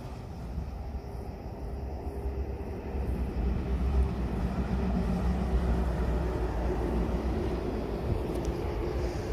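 Approaching train's low rumble, growing louder about three seconds in and holding.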